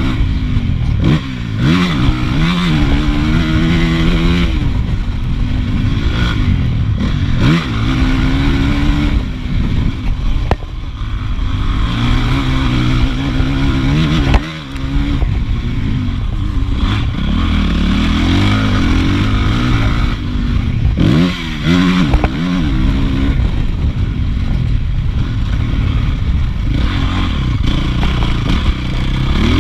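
Honda CRF450 motocross bike's single-cylinder four-stroke engine at racing pace, revving up hard and dropping off again and again as the throttle is opened and shut, with a short drop in level about halfway through.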